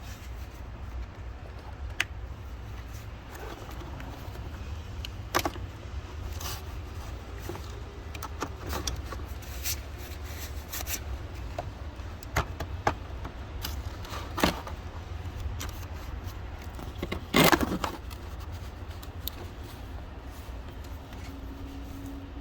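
Scattered clicks, clinks and light knocks of hard parts and tools being handled, over a steady low rumble, with the loudest cluster of knocks about seventeen seconds in.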